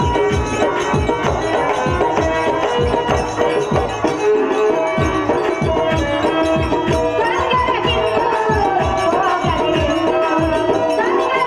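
Bayalata folk-theatre music accompanying a dance: a hand drum keeps a steady fast beat of about three strokes a second under held steady notes, and a wavering melody line joins about seven seconds in.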